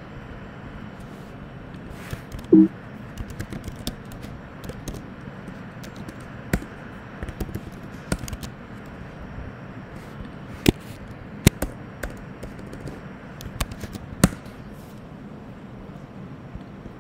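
Typing on a computer keyboard: scattered, irregular key clicks over a steady background hiss, with one short louder knock about two and a half seconds in.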